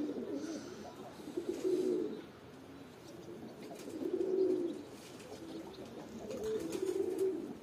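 Domestic pigeons cooing: low, burbling coos that come in spells, near the start, again about four seconds in, and near the end.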